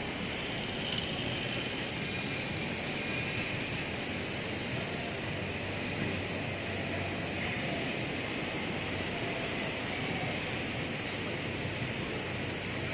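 Steady city street traffic: cars and a motorcycle driving past, tyres and engines blending into an even hum.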